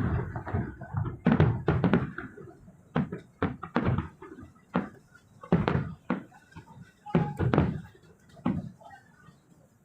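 Fireworks exploding in the sky: an uneven string of about fifteen bangs, some in quick clusters, thinning out and stopping about a second before the end.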